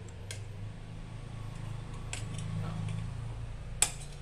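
A metal spatula clicking and scraping against plaster and a metal impression tray, with a few light clicks and one sharp clink near the end, over a steady low hum.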